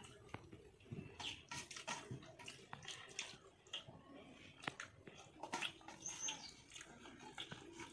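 Quiet wet eating sounds by hand: fingers squelching through rice and fish curry on a steel plate, with chewing and lip smacks making many short sharp clicks. A bird chirps faintly about six seconds in.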